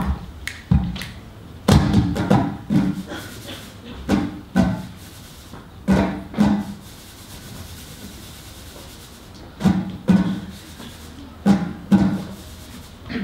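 Hands tapping on a tabletop as a percussion piece: short clusters of knocks with pauses between them, and a quieter stretch of a couple of seconds just after the middle.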